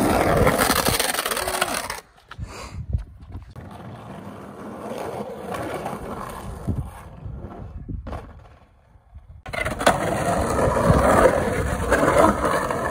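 Skateboard wheels rolling and carving across the concrete walls of an empty swimming-pool bowl. Loud at first, the sound drops off suddenly about two seconds in. It stays quieter with a few short knocks, then comes back loud about nine and a half seconds in.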